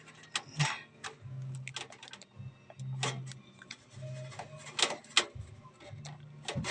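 Small clicks and taps of PC parts being handled while the case's colour-coded front-panel leads are plugged onto the motherboard, with a low hum that comes and goes.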